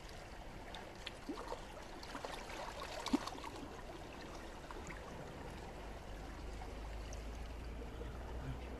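Shallow tide-pool water trickling among the rocks, with a few light ticks and one sharper tick about three seconds in, and a low rumble building near the end.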